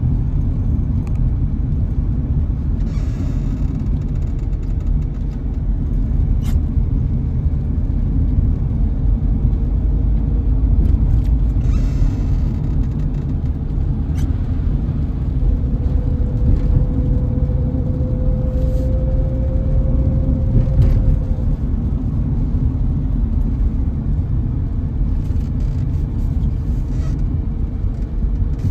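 A car driving, with a steady low rumble of road and engine noise and a faint steady hum. Midway through, a faint tone rises slightly for a few seconds.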